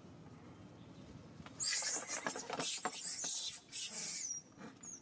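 Macaque screaming: a run of shrill, high-pitched screams starting about one and a half seconds in and lasting nearly three seconds, with a short squeal near the end. These are the distress screams of a young macaque being attacked and bitten.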